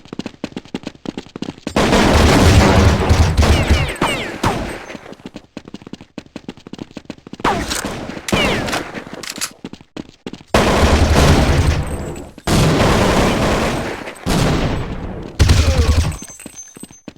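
A run of about half a dozen loud farts, each lasting a second or more with a rapid buzzing flutter, some ending in short squeaky rises and falls in pitch.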